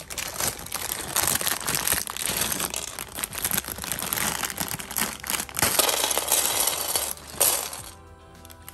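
Thin plastic parts bag of Lego pieces crinkling as it is opened and handled, with small clicks as the plastic bricks tumble out into a tray. The crinkling stops near the end, and quiet background music is left.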